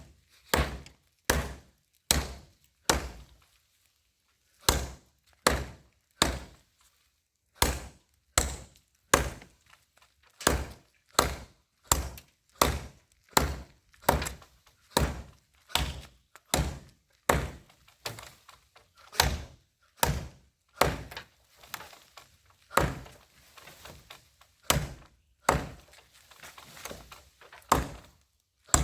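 Hammer blows knocking apart a pit latrine: dozens of sharp, separate strikes at a steady pace of roughly one every 0.7 s, with two short breaks a few seconds in.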